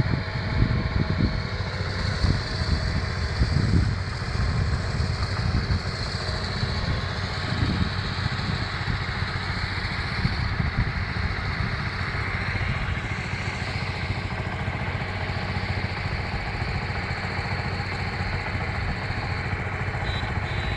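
A vehicle engine running steadily, with wind buffeting the microphone in a low rumble during the first several seconds.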